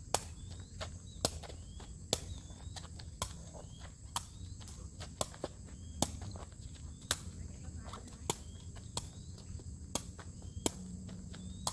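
A takraw ball being kicked back and forth, each kick a sharp smack, about one a second, over the steady drone of insects.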